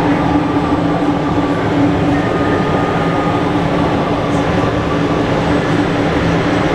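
A steady mechanical drone with a constant low hum, over the general din of a busy exhibition hall.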